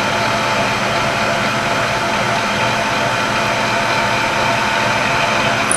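Drill press running steadily, a constant motor hum and whir while reaming a 5/8-inch hole in a cast iron block.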